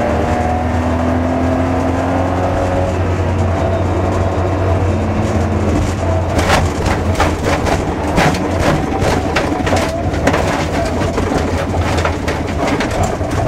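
Cabin sound of a BMW E30 325i rally car's straight-six engine running steadily under load. About six seconds in the car reaches loose gravel, and stones start striking the underside of the car, giving many sharp knocks over the engine.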